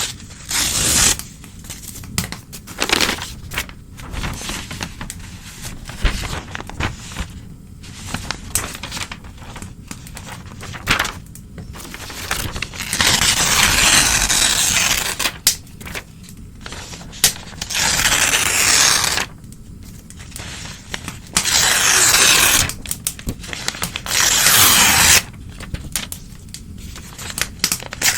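Old newspaper being torn by hand in a series of rips, several of them long and drawn out over a second or more, with rustling and crinkling of the paper between them.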